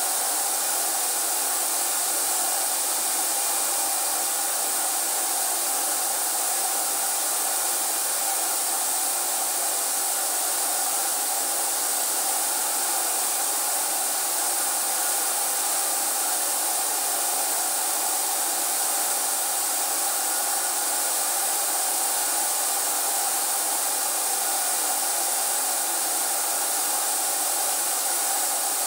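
HVLP paint sprayer's turbine running continuously with the hiss of air and paint from the spray gun, a steady whine like a hair dryer with no pauses.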